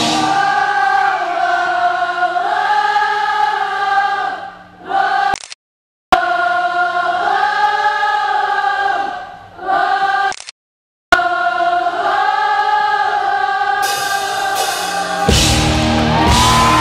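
Live rock concert sound: the lead singer and many voices singing a sung phrase that repeats three times over sparse backing, broken twice by brief dropouts to silence. Near the end the full band comes in loud.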